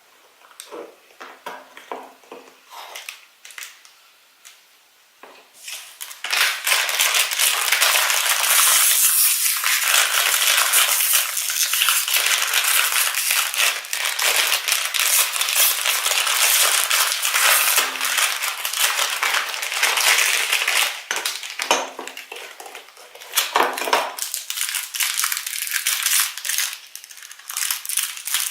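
Toy packaging being crinkled and torn open by hand: a few light clicks and handling noises, then loud, continuous crackling of foil or plastic wrapping from about six seconds in, easing off to softer rustling near the end.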